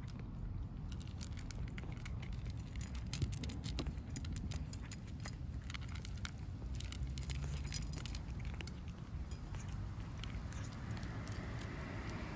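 Stray cats eating dry cat food: a run of small, crisp clicks and crunches as the kibble is bitten and knocked about, over a low rumble throughout. A rising hiss builds near the end.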